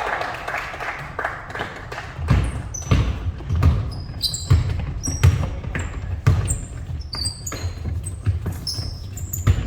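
Basketballs bouncing on a hardwood gym floor, a run of irregular deep thuds about one or two a second starting about two seconds in, with short high-pitched sneaker squeaks scattered between them.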